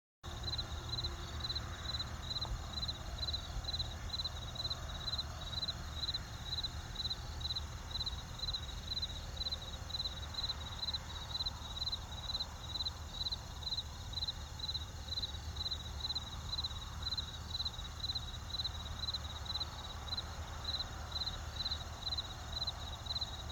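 Insects chirping steadily outdoors, a high chirp repeating about twice a second, over a low rumble.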